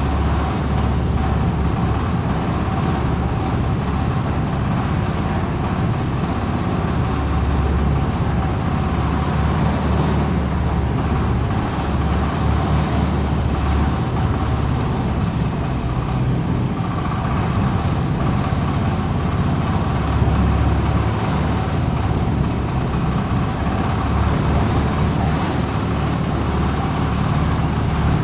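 Self-loading concrete mixer's engine running steadily, a heavy low rumble with a few faint steady tones above it.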